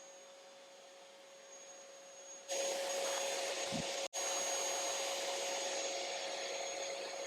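Ryobi wet and dry vacuum cleaner running steady, sucking stink bugs off citrus branches through its long nozzle. About two and a half seconds in, the rush of air suddenly gets much louder and stays so, broken once by a split-second gap.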